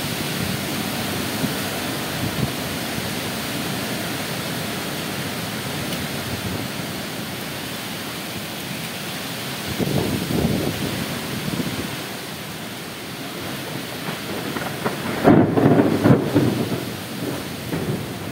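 Kalbaisakhi (nor'wester) thunderstorm: a steady hiss of heavy rain and strong wind through the trees, with two louder low rumbles, one about ten seconds in and a bigger one around fifteen to sixteen seconds.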